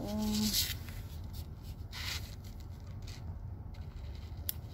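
Small clicks and rustles of a nail clipper being worked at a kitten's claws, with one sharp click near the end.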